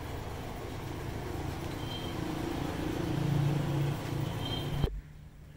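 Motor vehicle engine and road-traffic noise, a steady rumble that swells around three seconds in and cuts off abruptly near the end.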